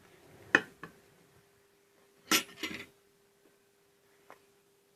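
A spoon clinking against a dish a few times: a single knock, a short run of clinks about two and a half seconds in, and a faint tap near the end, as sugar is spooned into milk. A faint steady hum runs underneath.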